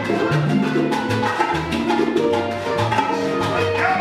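Salsa music: a steady, fast percussion beat under a moving bass line and held melody notes.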